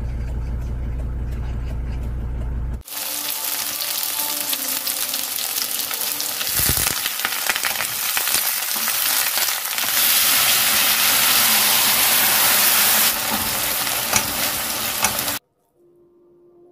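Tofu, button mushrooms, shishito peppers and red chilli sizzling loudly in a frying pan, a dense steady hiss that cuts off suddenly near the end. Before the sizzle comes a low steady rumble of about three seconds.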